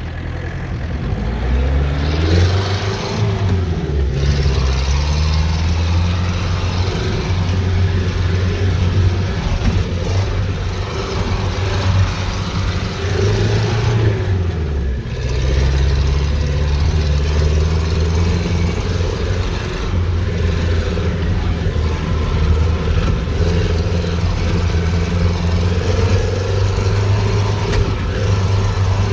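Motor vehicle engine running, its pitch rising several times as it revs or accelerates and then dropping back.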